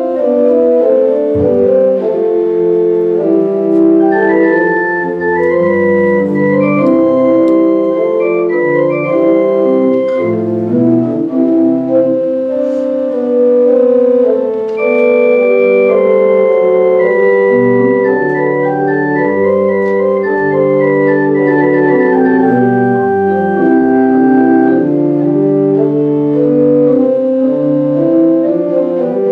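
Organ music: a slow piece of held chords, the notes sustaining without fading and changing every second or so.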